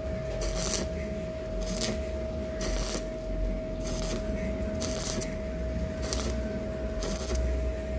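Arc welder laying short stitches of weld to fill gaps in metal: brief bursts of crackling about once a second, over a steady hum.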